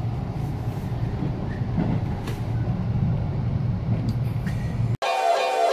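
Steady low rumble of a train running, heard from inside the passenger carriage. About five seconds in it cuts abruptly to music.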